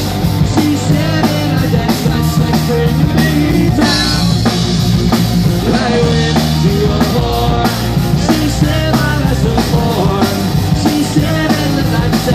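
Live rock band playing a punk-rock cover: electric guitars, one of them a custom Telecaster, with bass and drum kit, and a male lead singer.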